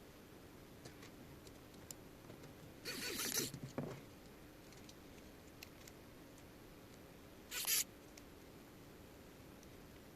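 Small 3D-printed plastic parts and tiny M2 screws being handled: faint scattered ticks, with short scraping rustles about 3 s in and again near 7.5 s.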